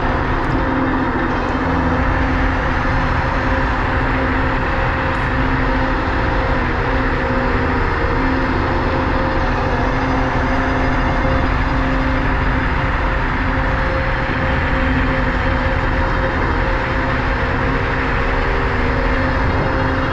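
Minimotors Dualtron Thunder electric scooter riding at a steady speed: a steady whine from its hub motors over a constant rumble of wind and road.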